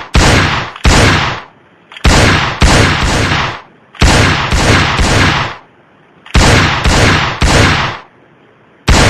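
Gunfire in bursts of three shots about half a second apart, a new burst every two seconds or so. Each shot fades away over about half a second.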